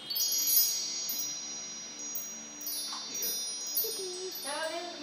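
Chimes ringing: a cluster of high, bell-like tones struck together at the start, ringing on, then struck again several more times. A faint voice is heard briefly near the end.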